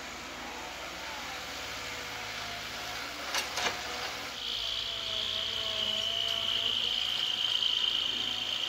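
Caterpillar 312B hydraulic excavator working, its diesel engine running steadily under a wavering hydraulic whine. Two sharp knocks come a little over three seconds in, and a steady high-pitched whine sets in about halfway through and holds.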